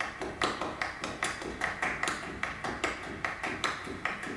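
Steady, even tapping, about two and a half sharp taps a second, from the performance's played sound score.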